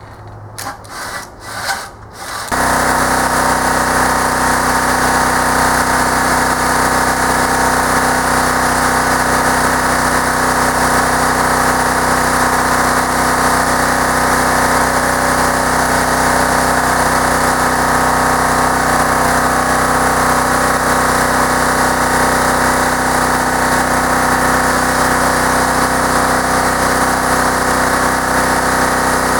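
A few short knocks, then a motor starts about two and a half seconds in and runs loud and steady without changing pitch.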